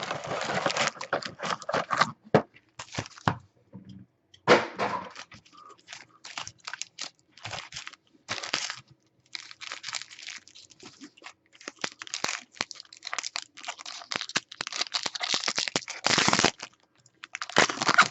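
Trading-card pack wrapper being torn open and crinkled, with the cards being handled: an irregular run of crackling, tearing and rustling.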